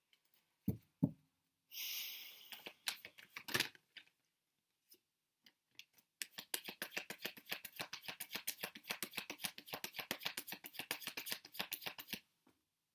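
A tarot deck being handled and shuffled by hand: a couple of knocks and a brief swish of cards early on, then about six seconds of rapid, dense card flicking from about six seconds in, as the deck is shuffled to draw clarifier cards.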